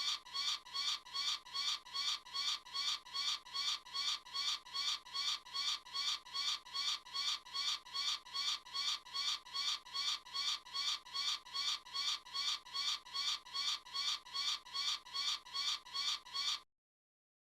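Eagle calling: short, high calls repeated very evenly, about two and a half a second, cutting off abruptly near the end.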